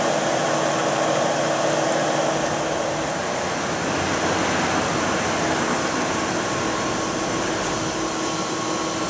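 Steady rush of water from a hose spraying across a gold concentrator table's deck, with a steady machine hum underneath.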